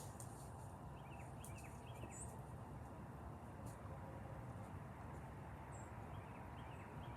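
Outdoor background with a steady low rumble and a few faint, short bird chirps: a cluster about one to two and a half seconds in and a few more near the end.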